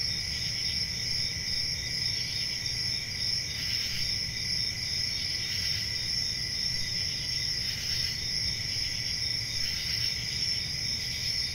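Steady chorus of crickets chirping, a continuous high trilling that holds at an even level.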